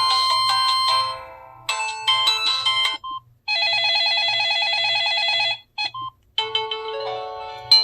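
Built-in polyphonic ringtones of a Samsung SGH-T309 phone played through its small speaker, one after another: a melody fades out, a second starts and stops after about a second, then a fast warbling trill plays for about two seconds before a third melody begins. Short single beeps sound in the gaps between them.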